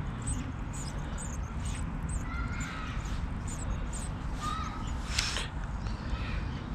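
Crow cawing a few times over a steady low rumble.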